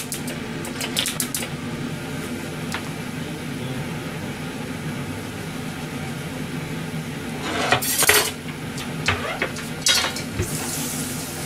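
Kitchen utensils knocking on a stainless-steel counter: a few light clicks about a second in, then a louder clatter about eight seconds in and a few more knocks near the end as a knife and cutting board are moved and set down. A steady low hum from the kitchen extractor fan runs underneath.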